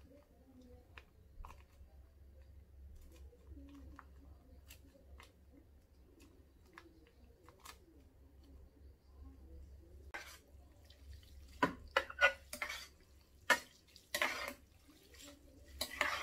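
A black bean sauce packet squeezed out over instant noodles in a pot, with faint clicks and rustles. From about ten seconds in come louder, wet, sticky sounds of the noodles being stirred and mixed with chopsticks against the pot, in several sharp bursts.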